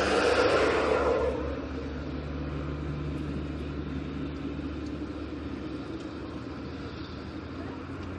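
A road vehicle passing, swelling loudest in the first second and fading by about a second and a half, followed by a steady low hum.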